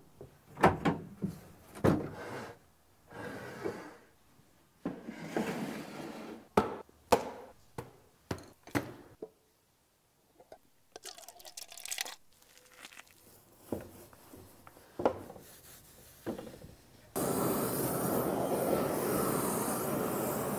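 A run of sharp knocks, taps and scrapes of wood and hand tools, including a metal paint can being pried open. About three-quarters of the way through, a loud, steady rush of flames burning inside a wooden box starts suddenly.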